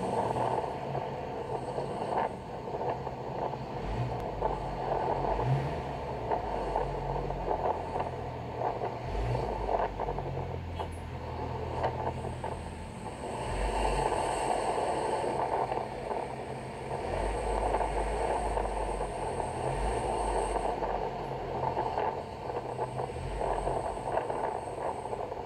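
Steady engine and road noise heard from inside the cab of a large vehicle driving along a road, with a rumble that rises and falls.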